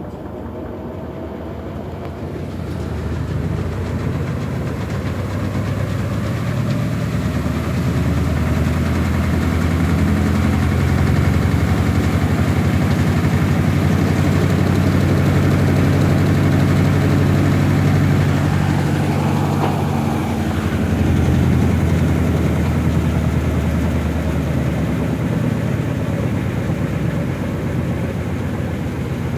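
Electrolux washing machine running with a loud, low mechanical drone and a fast pulsing. It builds up over the first few seconds, holds steady, and dips briefly about twenty seconds in. This is the noise the owner is reporting as a problem with the machine.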